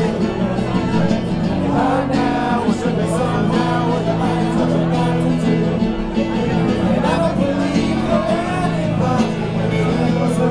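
Live band: a man singing into a microphone with guitar accompaniment, with long held low notes underneath the voice.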